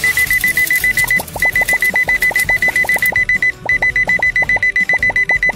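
Telephone ringing: a high electronic trilling ring in three long bursts with short breaks between them. A quick light ticking, about five a second, runs underneath from about a second in.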